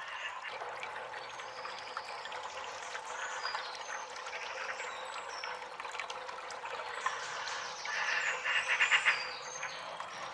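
Water trickling steadily, with short high chirps scattered through it and a louder patch of rapid splashing about eight seconds in.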